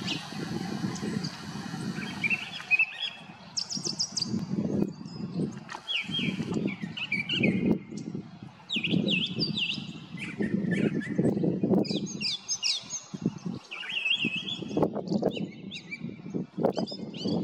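Brown thrasher singing: a long run of varied, short chirping and sliding phrases in quick succession, over an uneven low background rumble.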